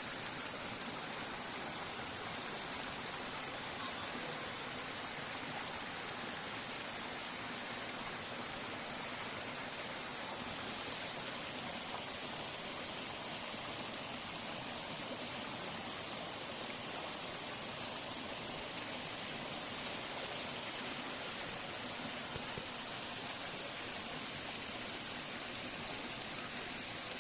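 Waterfall splashing into its pool: a steady, even rush of falling water.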